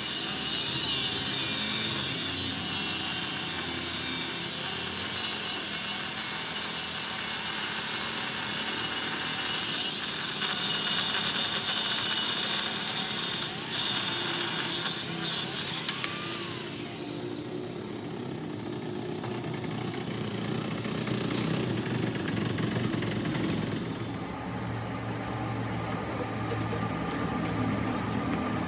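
A power tool running steadily with a strong high hiss, which drops off about 17 seconds in to a quieter, lower running sound.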